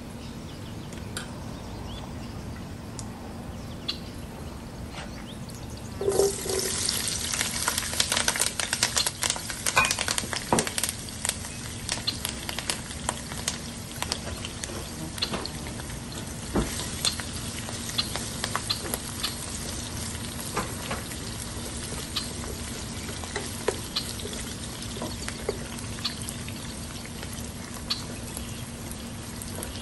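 Food hitting hot oil in a pan about six seconds in and sizzling, with spattering crackles that are loudest for the first few seconds, then settling to a steady sizzle. A steady low hum runs underneath.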